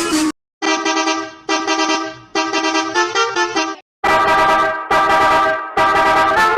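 Bus horn blasts played as a string of edited sound variations: about five separate blasts, each lasting roughly a second, starting and stopping abruptly, with the pitch stepping between notes within several of them.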